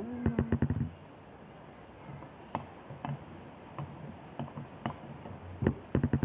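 A child's mouth chewing close to the microphone: a quick run of wet clicks and smacks over a short low hum in the first second, then scattered single clicks, and another quick cluster near the end.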